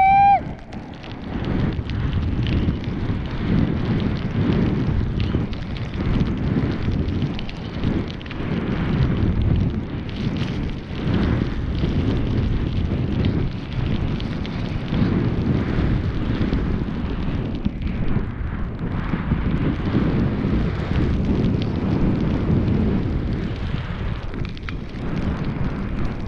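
Snowboard sliding through fresh snow with wind buffeting the helmet-mounted camera's microphone: a loud, continuous deep rushing that swells and eases with the rider's turns.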